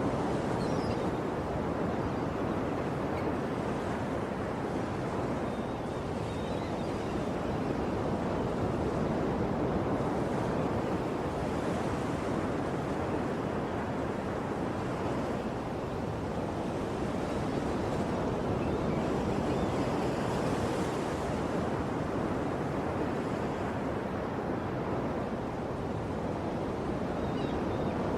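Ocean surf washing on a shore: a steady rush of breaking waves that rises and falls gently, with a few faint high chirps.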